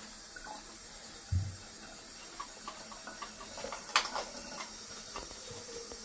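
Sink tap running a thin steady stream of water onto a washable vacuum filter being rinsed. A dull thump comes about a second and a half in, and a sharp click about four seconds in.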